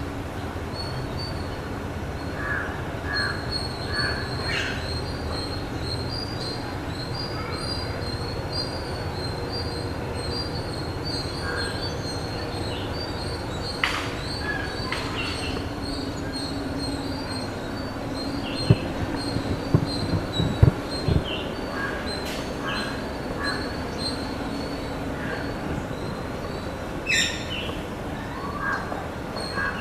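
A steady, high-pitched insect drone, likely cicadas or crickets, over an even outdoor background, with scattered short bird chirps and a few sharp knocks.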